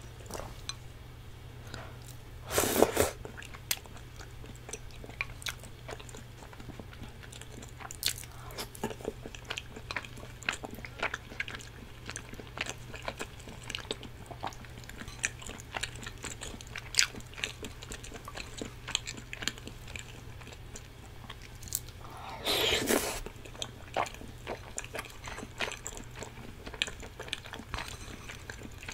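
Close-miked chewing of cheese tteokbokki (spicy rice cakes in sauce), with many small mouth clicks and a metal spoon clinking on a glass bowl. There are two louder slurps, one about three seconds in and one about six seconds before the end.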